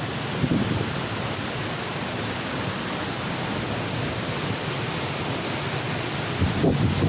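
Waterfall rushing in a steady, even roar of falling water. Near the end, low gusts of wind buffet the microphone.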